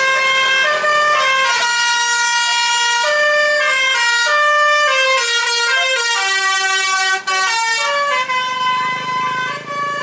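Indonesian 'basuri' telolet bus horn, a multi-tone musical horn, playing a melody: a continuous run of steady notes stepping up and down several times a second, with a brief break a little past the middle.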